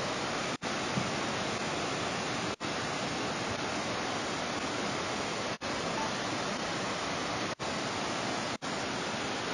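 Floodwater rushing fast down a street: a steady, even rush of water, broken by several brief silent gaps.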